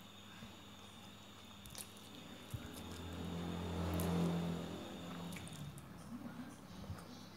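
Chewing and slurping of instant noodles, with small wet mouth clicks. A low, steady drone swells and fades over a few seconds in the middle.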